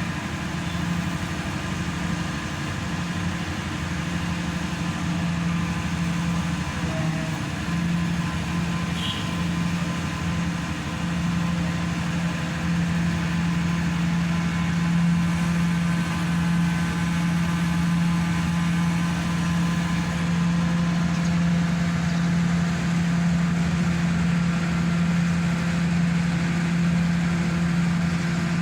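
Hydraulic static pile driver's engine and hydraulic power unit running steadily, a continuous hum with a strong low tone that grows somewhat louder over the first half.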